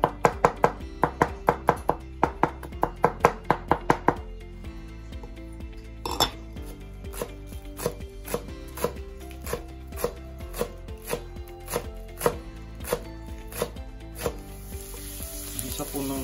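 A chef's knife chopping on a cutting board: fast, rapid chops mincing garlic for about the first four seconds, then slower, evenly spaced cuts slicing green onions. Near the end, minced garlic begins to sizzle in oil in a pan.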